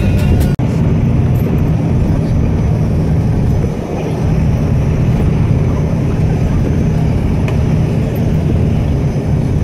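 Steady low rumble of a moving vehicle heard from inside its cabin while it travels along.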